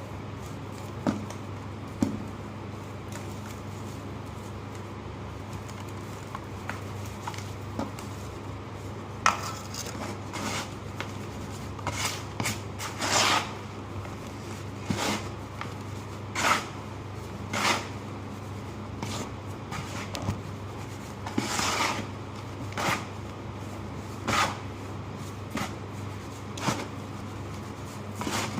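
Dry crumbly clumps of ash, sand or charcoal being crushed, giving short soft crunches about once a second from about nine seconds in, a few of them longer and louder; before that only a couple of light ticks. A steady low hum runs underneath.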